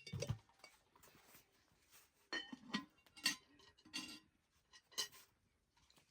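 A series of sharp clinks and knocks of hard objects being handled, some ringing briefly, about half a dozen spread irregularly across the few seconds.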